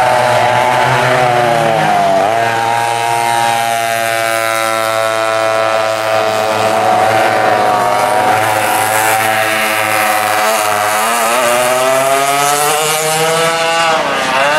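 Pair of West Bend 820 two-stroke engines on a vintage racing kart running at speed on track. Their pitch dips and climbs back several times as the kart laps: once about two seconds in, again in the middle and near the end.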